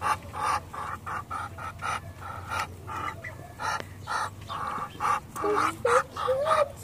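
Muscovy ducks giving a run of short breathy calls, about three a second.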